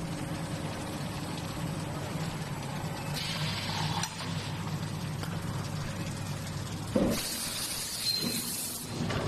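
Hot forging press line running with a steady machinery hum. About three seconds in there is a short hiss with a click. Near the end a sharp metallic strike of the press on the glowing blank is followed by a high hiss lasting under two seconds.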